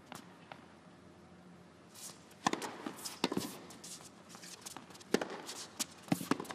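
Tennis rally: sharp pops of the ball off racquet strings and the court, the first about two and a half seconds in, with shoe scuffs on the court between shots.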